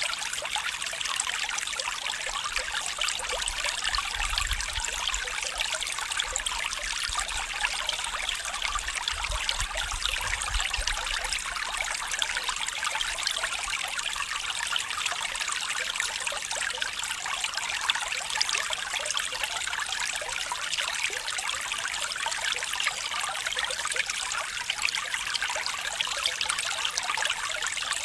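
Water trickling and running steadily in a shallow stream, an even splashing babble.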